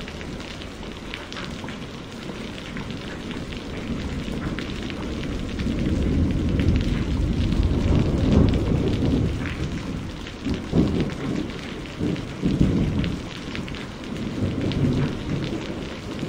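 Steady heavy rain with many separate drops hitting, under thunder that rolls in from about four seconds in, grows loudest around the middle, then returns as several shorter low rumbles toward the end.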